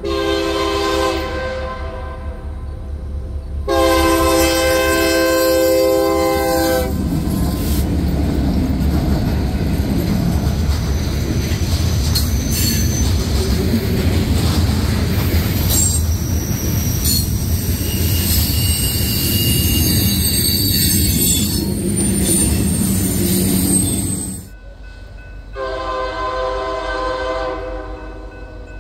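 Loaded BNSF coal train led by EMD SD70MAC diesel locomotives: the multi-note air horn sounds, then the locomotives and a string of loaded coal hoppers roll past with a steady rumble and clatter of wheels on rail, and squealing wheel flanges. After a sudden cut about three-quarters of the way in, the horn sounds again from farther off.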